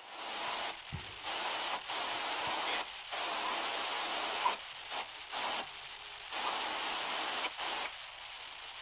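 Live video-call audio breaking up: a steady hiss of static, cut by short irregular dropouts, with no clear speech coming through.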